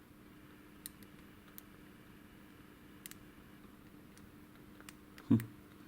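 Faint, scattered light clicks of a lock pick and tension wrench working the pins inside a Master Lock padlock, a few ticks spaced a second or more apart.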